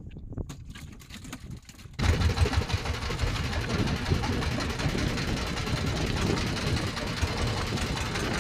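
A fishing boat's engine running under way, with wind on the microphone and the hull moving through choppy water; it starts suddenly about two seconds in, after a quiet stretch of faint handling clicks as a small fish is unhooked.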